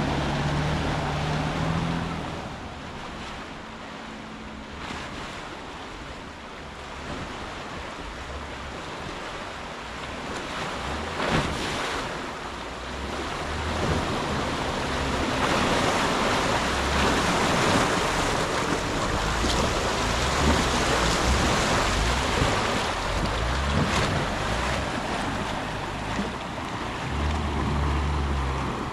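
Jeep Wrangler's engine running low beneath a steady rushing noise that grows louder about halfway through, with a single knock about eleven seconds in.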